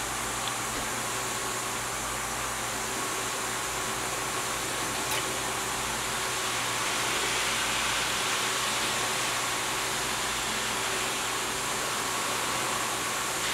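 Steady machine hum with an even hiss, like a running fan or pump, holding level throughout.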